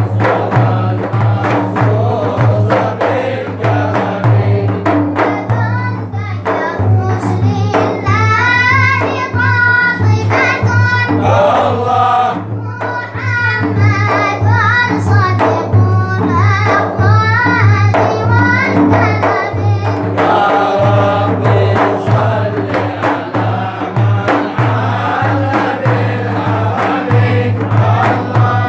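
A group of voices chanting a mawlid devotional song in praise of the Prophet Muhammad over a steady beat and a constant low drone. A lead voice sings ornamented, wavering lines through the middle of the passage.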